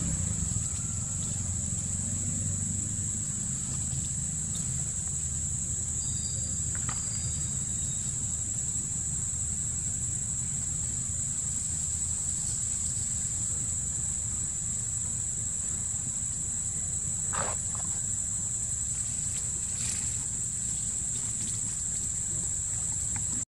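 Insects droning in one steady, high-pitched tone, over a low rumble, with a few faint short calls now and then.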